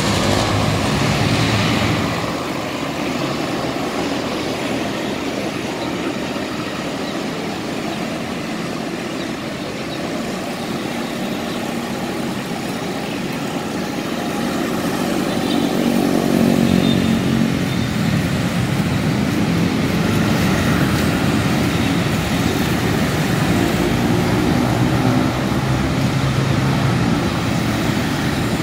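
Busy road traffic: jeepneys, a truck, cars and motorcycles running and passing in a steady rumble, with an engine growing louder around the middle.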